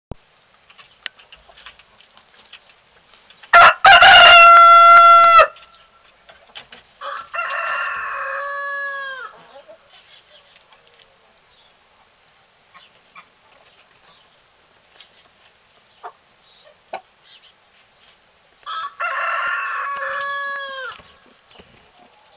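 Gâtinaise rooster crowing three times. The first crow, about four seconds in, is very loud and distorts. Two quieter crows follow around eight and twenty seconds in, each ending on a falling note.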